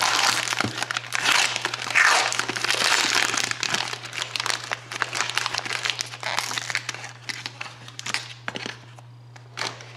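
Plastic wrapper of a trading card pack crinkling and crackling as it is torn open and the cards are pulled out, dense at first and thinning to a few scattered crackles near the end.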